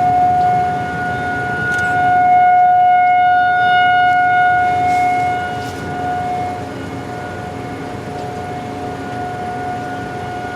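Outdoor civil-defense warning siren sounding one steady tone, swelling louder for a few seconds and then settling back to a lower level. It is the alert for a tornado warning in effect.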